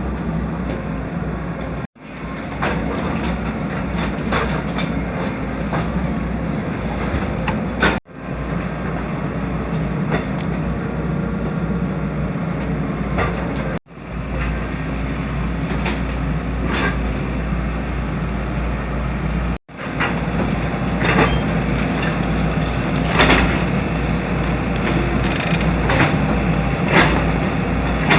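Excavator diesel engine running steadily under load, with repeated knocks and cracks of concrete being broken, the knocks louder and more frequent in the second half. The sound drops out for an instant four times at even spacing.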